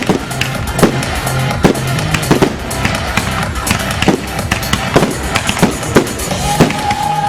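Fireworks bursting, with sharp bangs coming irregularly about twice a second, over an electronic music soundtrack with a steady bass line.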